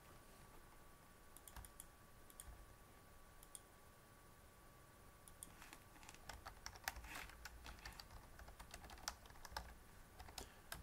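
Faint typing on a computer keyboard: a few scattered keystrokes at first, then a quick run of keystrokes in the second half.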